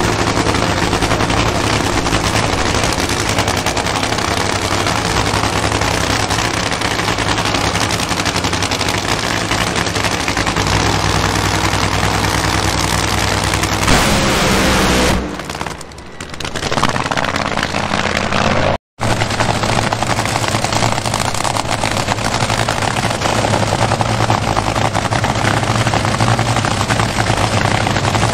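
A nitromethane-burning, supercharged V8 drag-racing engine from a Top Fuel dragster or Nitro Funny Car, running loud and steady with a rapid crackle. About fifteen seconds in the sound falls away and comes back, and a few seconds later it cuts out for an instant.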